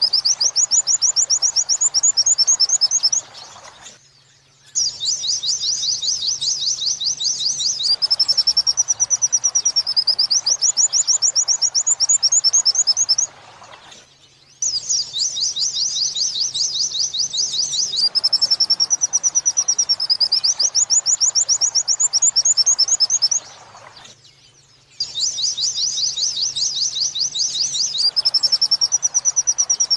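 White-eye (pleci) song in the 'wit-wit sambung kunti' style: fast runs of high chirping notes and a rising-and-falling whistled phrase. The song breaks off for short pauses about every ten seconds, each time starting up again with the same sequence, as a looped training recording does.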